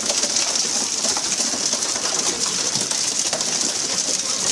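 Steady hiss of rushing water and spray alongside a pole-and-line tuna fishing boat under way.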